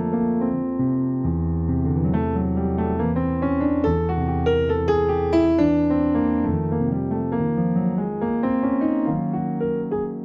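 Solo piano music: a melody over held low notes and chords.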